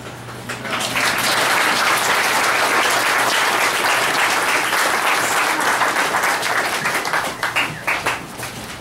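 Audience applauding, building up about a second in and thinning to scattered separate claps near the end.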